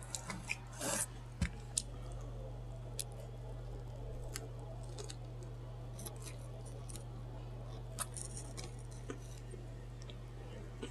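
Close-miked chewing of a sub sandwich: scattered crisp clicks and crunches, a few louder ones in the first two seconds, over a steady low hum.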